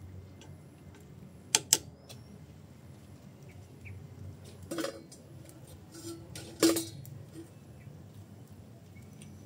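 Kitchenware clattering: two quick sharp clicks, then two separate knocks a couple of seconds apart, the later one louder. Each knock rings briefly, like a pot, lid or bowl being set down.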